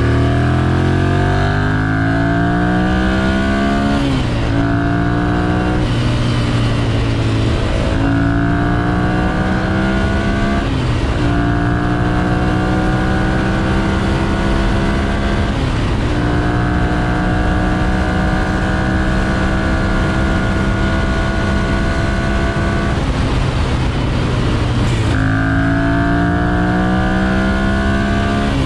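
2011 Ducati Monster 696's air-cooled 696 cc L-twin accelerating hard through the gears, its exhaust note climbing and dropping back at each upshift, then holding a nearly steady pitch at speed before changing again near the end.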